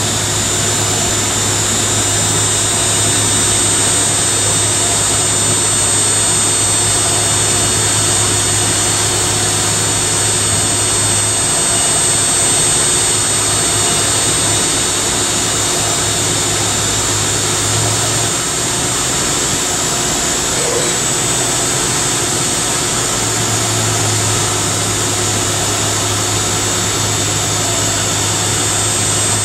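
Machining-centre spindle spinning a XEBEC ceramic-fibre deburring brush inside the bore of a cross-drilled cylindrical metal workpiece: a steady whine with high tones over a continuous whirring hiss, as the brush deburrs the cross-hole edges and polishes the bore.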